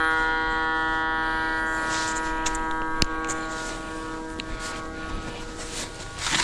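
Electronic tone from a cable locator: a steady buzzy tone with many overtones that slowly fades. There is a sharp click about three seconds in and rustling near the end.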